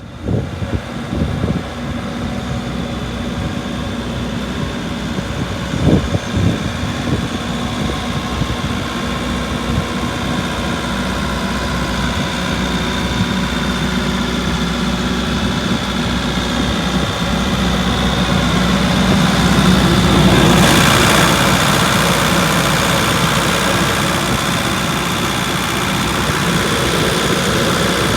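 Kobelco SK75SR-3E excavator's diesel engine running steadily, with a couple of knocks about a second and six seconds in. Past the middle the engine grows louder and fuller, peaking about twenty seconds in, then settles slightly.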